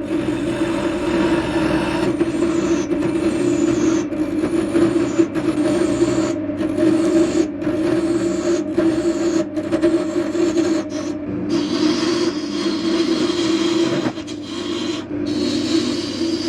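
Wood lathe spinning a wood blank with a steady hum while a tool works against the turning wood, making a continuous scraping, rasping noise that breaks off briefly about once a second.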